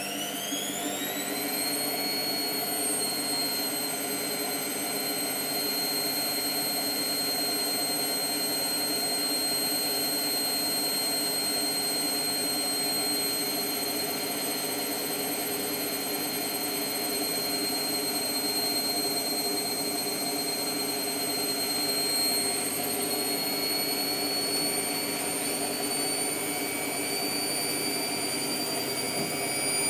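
Hotpoint Aquarius WMF720P washing machine going up into its 1200 rpm spin burst: a whine that rises quickly over the first couple of seconds, then holds as a steady high whine, climbing slightly again about three quarters of the way through.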